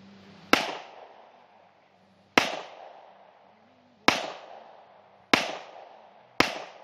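Glock 24 .40 S&W pistol fired five times, single shots spaced about one to two seconds apart, each trailing off in a short echo.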